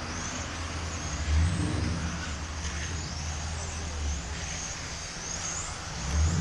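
Electric 1/10-scale RC touring cars racing on an asphalt track: thin motor whines rise and fall in pitch as the cars speed up, brake and pass. A steady low rumble sits underneath and swells twice.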